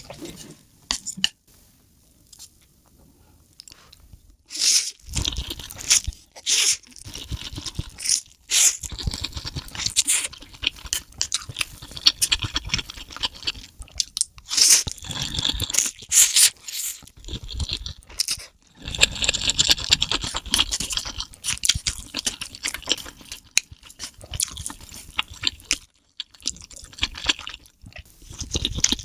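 Close-miked eating: a person chewing and crunching food in irregular bites, with sharp crackly crunches. There is a quieter pause of a couple of seconds near the start.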